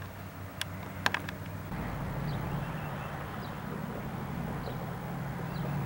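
Steady low engine rumble from somewhere off in the distance, with a few sharp clicks about a second in and a short high chirp, typical of a small bird, repeating about once a second after that.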